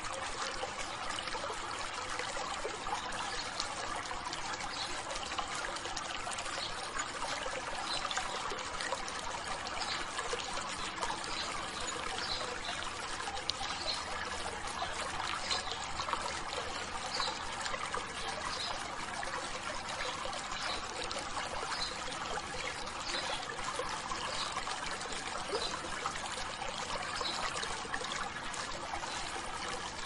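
Stream water splashing and trickling over rocks in a small cascade, a steady, unbroken rushing.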